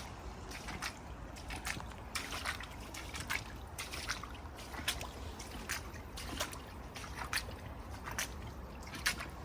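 Floodwater splashing and trickling, with irregular small splashes one to three a second over a steady low rumble.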